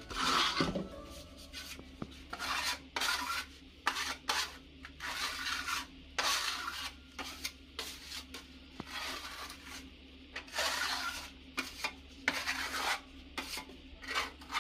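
Putty knife scraping across a plaster wall in short, irregular strokes, about one or two a second, spreading filler over damaged patches.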